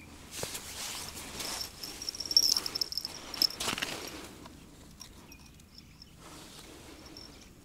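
Handling sounds as an ice-fishing tip-up is rigged: the rustle of down-jacket sleeves and fingers working the plastic tip-up, its spool and line, with a thin, steady high tone between about one and a half and four seconds in.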